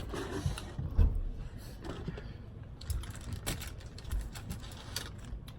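Close-up eating and food-handling noises: irregular small clicks and taps, with a louder low thump about a second in.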